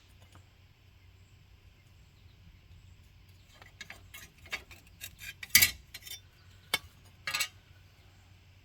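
Light metallic clinks and taps, as of hand tools knocking against metal parts, in a quick irregular run that starts about three and a half seconds in; one clink near the middle stands out as the loudest.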